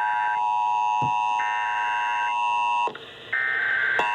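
Emergency Alert System tones from overlapping receivers: three digital SAME header data bursts, each about a second long and about a second apart, over a steady two-tone EAS attention signal. The attention signal cuts out briefly near three seconds in and starts again near the end. Together they mark the start of an EAS relay of a tornado warning.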